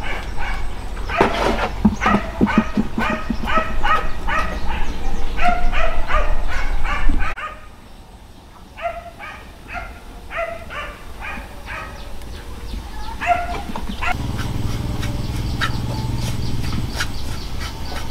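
Rapid, high, short yipping calls from an animal, about four or five a second, breaking off about seven seconds in, then a few sparser calls. A steady low hum comes in near the end.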